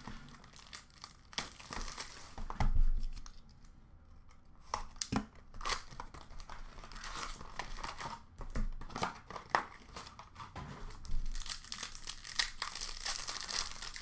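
Hands tearing open a 2021-22 Upper Deck Artifacts hockey card pack: the wrapper crinkles and rips in irregular bursts, with a dull knock about three seconds in and denser rustling of the wrapper and cards near the end.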